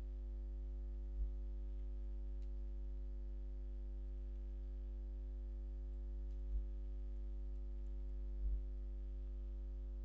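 Steady electrical mains hum, a low buzz with many even overtones, with three or four faint soft knocks, about a second in, around six and a half seconds, and twice near eight and a half seconds.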